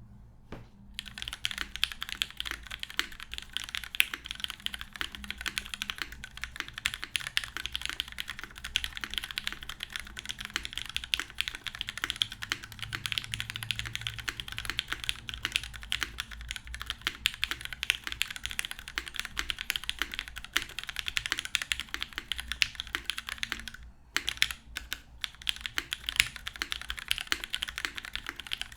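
Fast, continuous typing on a custom mechanical keyboard with lubed, retooled Cherry MX Black linear switches in a full aluminum top-mount plate, no foam, and Cherry doubleshot keycaps, giving a two-tone clack. It starts about a second in and breaks off briefly near the end for a few scattered keystrokes before the steady typing resumes.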